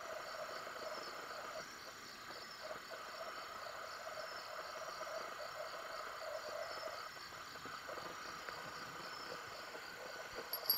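Night chorus of frogs and insects calling: a steady, faint trilling with quick repeated chirps high up, over a light hiss from the river.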